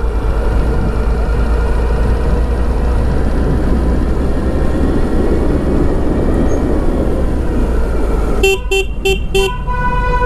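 Motorcycle riding noise with wind rushing over the camera's microphone during a downhill ride. Near the end a vehicle horn toots four quick times and then sounds one long note.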